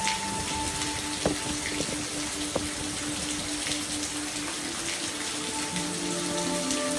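Steady rain falling as an even hiss, with a couple of louder drops plinking about a second and two and a half seconds in. Soft sustained music tones play underneath.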